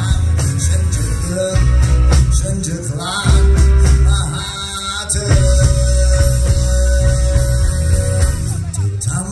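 Live rock band performance: a male lead vocalist sings into a microphone over electric guitar, keyboard and a heavy bass. A note is held for about three seconds midway through.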